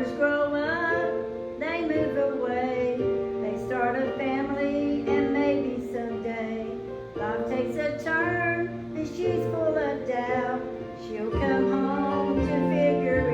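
A solo singer singing a gospel song over instrumental accompaniment, with sustained chords under the vocal line.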